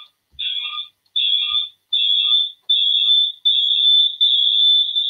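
Audio feedback in a video-call audio loop: a shrill high-pitched ringing repeats about every 0.8 s, each repeat longer than the last, until they merge into one steady whine about four seconds in. It is the sign of the call's audio being picked up and sent back round during a sound check.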